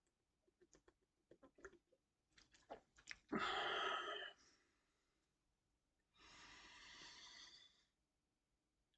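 A person's heavy breath, a breathy rush lasting about a second, then a quieter breath of about a second and a half, between soda-chug burps. Soft clicks from the mouth come before it.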